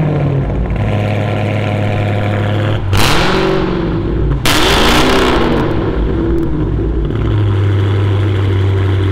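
Dodge Challenger Hellcat Widebody's supercharged 6.2-litre V8 idling through its exhaust, blipped twice, about three and four and a half seconds in, then settling back to a steady idle.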